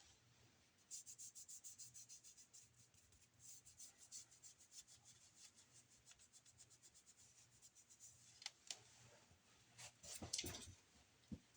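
Faint, quick rubbing strokes, about six a second, of hair being worked close to the microphone, with a few louder rustles near the end.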